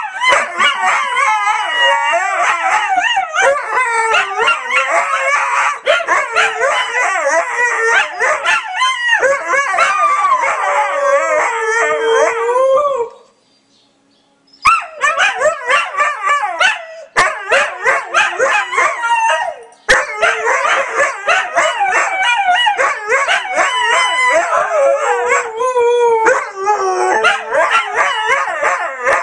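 Several Siberian huskies howling together: many overlapping, wavering howls. The howling breaks off suddenly for about a second and a half around the middle, then resumes.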